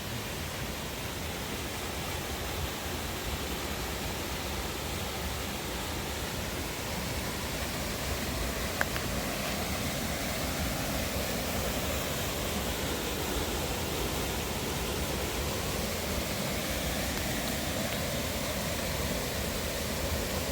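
Steady rushing water, the even roar of a waterfall or fast stream, holding at one level throughout.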